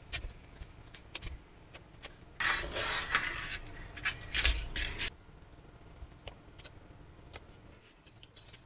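Sheets of Depron foam being handled and pressed together on a wooden desk: light clicks and taps, then a stretch of scraping and rustling from about two and a half to five seconds in.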